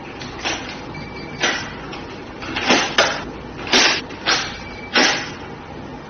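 SL-HBRF hotel room door lock worked with its mechanical override key: the key going into and turning in the lock cylinder, with about seven sharp clicks and clacks of the lock mechanism at irregular intervals.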